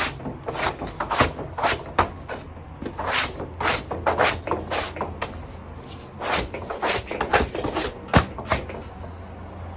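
Soft brush swept in quick strokes across a bare headliner board, brushing off loosened old glue and cloth residue. The strokes come in runs at about two a second, with short pauses between runs.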